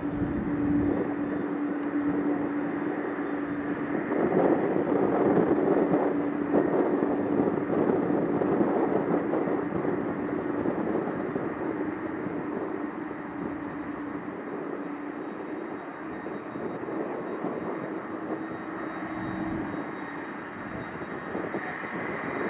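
McDonnell Douglas MD-11F freighter's three Pratt & Whitney jet engines running at taxi power: a steady rushing noise over a low steady hum. It swells a few seconds in and then slowly eases.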